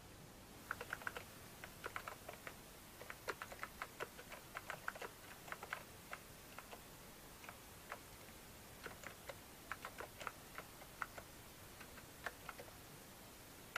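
Keys being typed on a BBC Micro computer keyboard: faint, quick clicks in irregular runs with short pauses between them, stopping about a second before the end.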